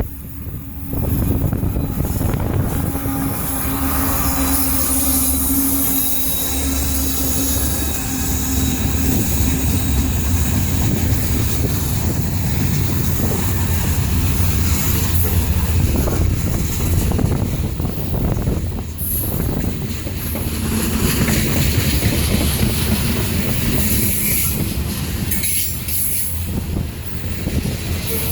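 Train rolling past close by: a steady rumble of wheels on rail, with flanges squealing.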